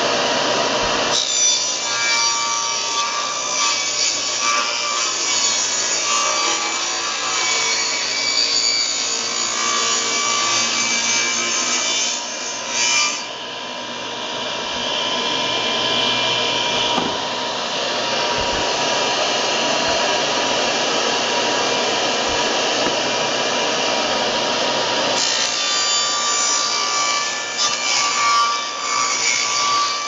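Table saw running and ripping half-inch marine plywood into strips, with a brief lull about halfway through.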